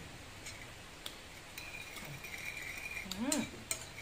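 A person chewing food with small mouth clicks and smacks, and a short hummed 'mm' that rises and falls in pitch about three seconds in.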